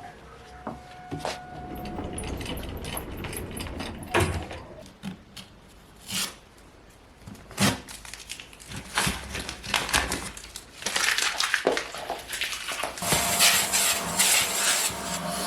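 Household items being handled: scattered knocks and clatters, then a steady hiss setting in near the end.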